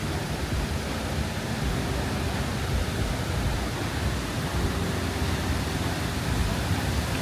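Waterfall rushing, a steady, even sound of falling water.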